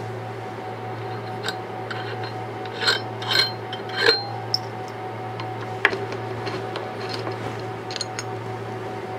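Long hex key working the screws of an aluminium CNC spindle mount, with a few short metallic clicks and rubs as the mount is freed and lifted off. A steady low hum runs underneath.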